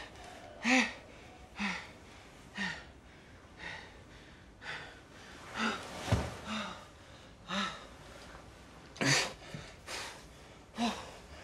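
A man gasping and groaning in short breaths, about one a second, in pain. There is a dull thump about six seconds in.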